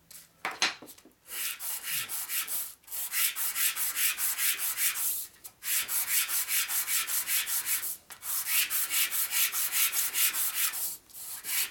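A metal part being rubbed by hand on 120-grit sandpaper laid on a flat steel table, a dry rasping in quick back-and-forth strokes, several a second, with short pauses between runs and a single knock near the start. It is the lapping of a gasket face flat, the grit leaving enough tooth for the gasket to bite into.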